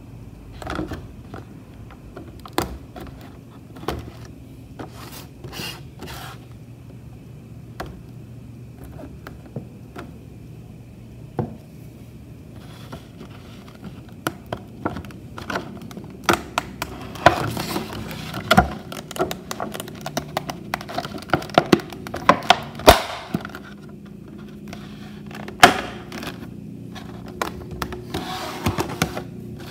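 Stiff clear plastic blister packaging being handled, flexed and pried apart by hand: scattered clicks and crackles of the plastic, sparse at first and much busier in the second half, with a few sharper knocks.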